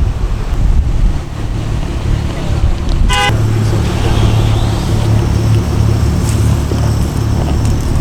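Car engines running with a low, steady rumble, and a single short car-horn toot about three seconds in.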